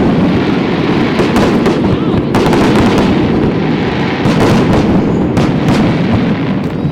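Fireworks display: a loud, continuous barrage of aerial shell bursts booming and crackling over one another, with no gap.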